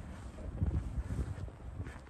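Wind gusting against the microphone in a snowstorm: an uneven low rumble that swells about half a second in and eases off toward the end.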